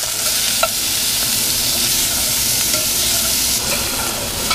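Chicken pieces frying in very hot canola oil in a stainless steel pan, a steady, loud sizzle with light clinks of a metal spoon stirring.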